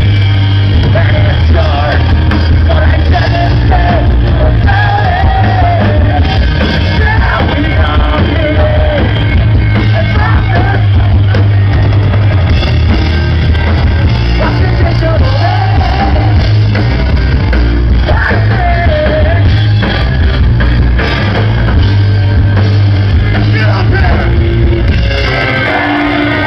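Live rock band playing loud through a venue PA, with sung vocals over heavy bass, guitars and drums. The sound drops slightly in loudness near the end.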